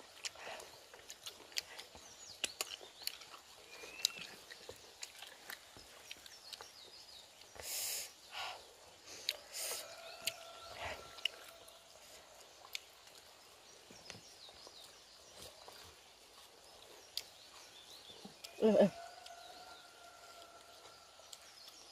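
Cooked snails being eaten by hand: small clicks of snail shells and a bamboo skewer, and two short slurps about eight and ten seconds in, with birds and insects chirping in the background. Near the end comes one loud, short voiced sound that falls in pitch.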